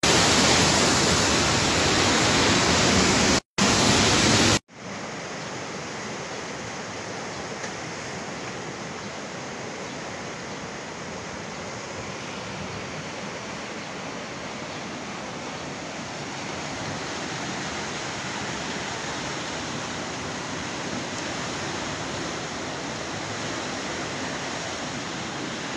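Floodwater rushing through a walled river channel, a steady, even noise of fast-moving water. The first few seconds are a much louder, harsher noise that drops out briefly and then cuts off abruptly.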